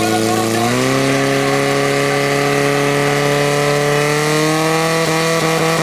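Portable fire pump engine running hard at high revs. Its note steps up in pitch about a second in, then creeps slowly higher while it pumps water out through the hoses to the jets.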